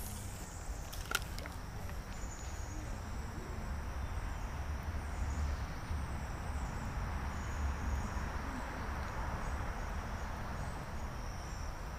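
Insects trilling steadily at one high pitch over a low rumble, with a single click about a second in.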